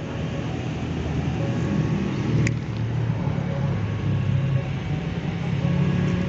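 Low engine rumble that swells over the first second and then holds steady, with a brief high whistle-like tone about two and a half seconds in.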